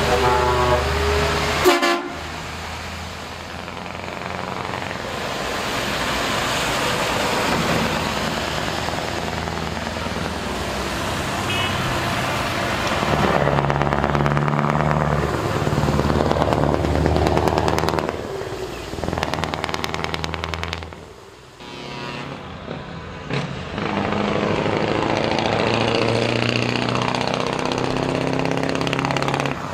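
Heavy show trucks with open, straight exhaust pipes driving past one after another, their diesel engines loud and rising and falling in pitch as they pass and pull away. An air horn sounds in the first couple of seconds.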